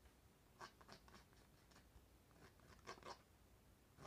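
Faint scratching of a pencil drawing lines on a canvas: a few short strokes around half a second to a second in, and again near three seconds.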